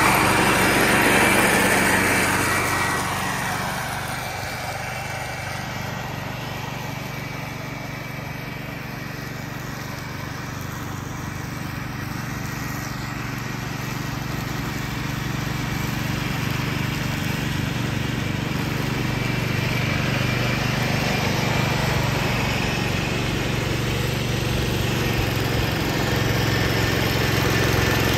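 1969 Ford 140 garden tractor's engine and mower deck running steadily while mulching dry leaves. It is loud at first, fades a few seconds in as the tractor moves away, then grows louder again as it comes back.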